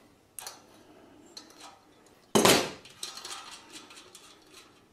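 Light metal clicks and one sharp clank about halfway through, as the steel blade hub of a yard whirligig is handled and lifted on its threaded centre shaft.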